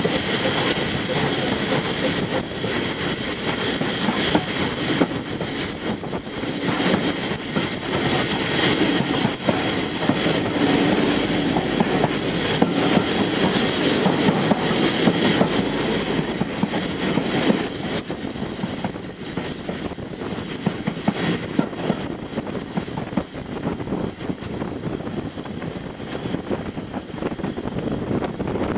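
Steam train under way, heard from aboard: the SECR P class tank locomotive working ahead, with steady wheel and rail running noise. It eases a little past the middle.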